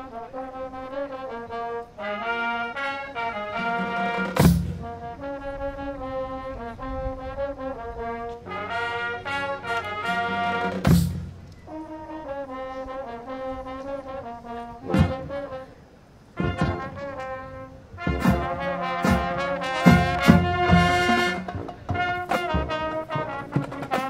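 High school marching band playing its field show: the brass section holds loud sustained chords that change every second or two. Sharp percussion hits break in a few times, with a run of them near the end.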